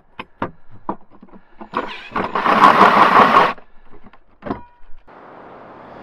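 Cordless drill spinning a large hole saw into a wooden floor, cutting for about two seconds after a few light knocks. A single thump follows.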